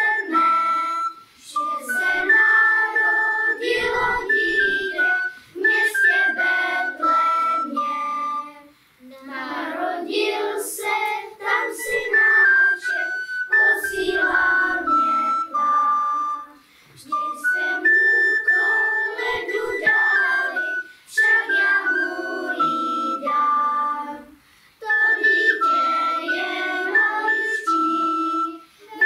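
Children's choir singing a Christmas carol in unison. It comes in phrases of about seven to eight seconds, each followed by a short breath pause.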